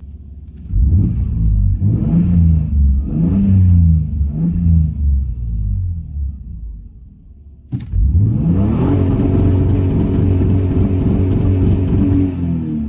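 Toyota Supra Mk4's 2JZ-GTE twin-turbo straight-six being revved: about four quick blips that rise and fall in pitch. After a sharp click about eight seconds in, it climbs and is held at steady high revs for about four seconds, dropping back near the end.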